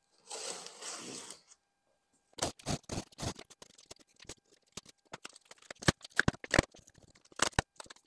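A short rustle, then a run of irregular sharp clicks and knocks from car interior parts and tools being handled.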